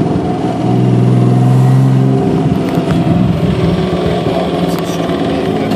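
Turbocharged RB20 straight-six in a Nissan 240SX running while driving, heard from inside the cabin. The engine note swells for about a second and a half near the start, then holds a steady drone.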